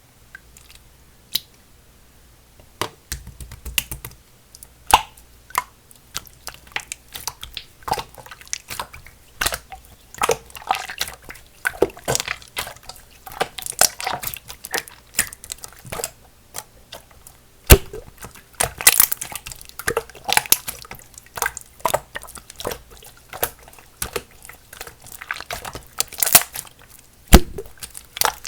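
Hands squeezing and stretching a very runny clear slime: a dense run of wet clicks, pops and squishes, starting about three seconds in.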